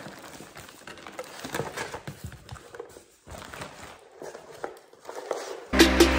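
Clear plastic packaging bags crinkling and a cardboard box scraping and rustling as bagged items are lifted out and set down, with small clicks and taps. Music with a beat starts suddenly near the end.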